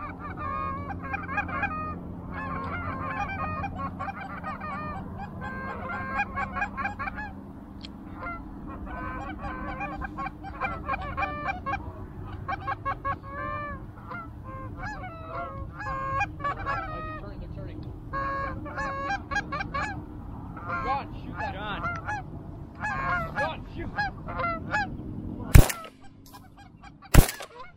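A flock of Canada geese honking over and over as they come in. Near the end, two shotgun shots about a second and a half apart.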